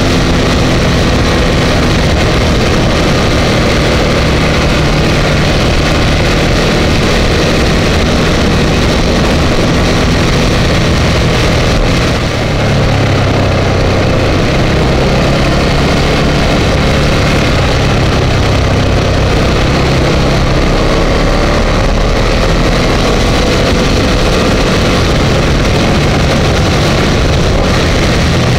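Ducati Multistrada 1200 S's L-twin engine running steadily while riding, mixed with a steady rush of wind over the bike-mounted camera. The level dips briefly about twelve seconds in.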